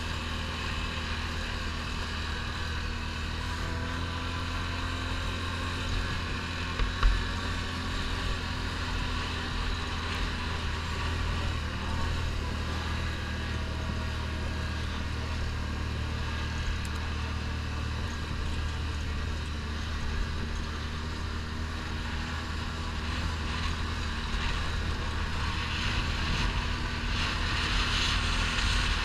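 ATV (quad bike) engine running steadily while riding over a gravel track, heard through a GoPro. A single low thump about seven seconds in, and a rushing noise grows louder near the end.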